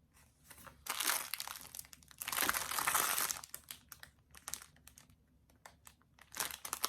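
Plastic packaging of a diamond painting kit crinkling as it is handled, in irregular bursts: a short one about a second in, a longer, louder one from about two to three seconds in, then scattered small rustles and ticks and another burst near the end.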